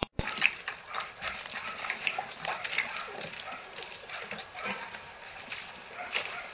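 Four-week-old puppies feeding at a bowl of milk on newspaper: a quick, irregular run of small clicks and rustles from lapping and paws.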